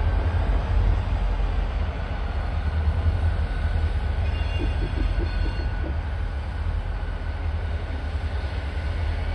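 Three Union Pacific diesel locomotives pulling a train of tank cars slowly past, their engines making a steady low rumble.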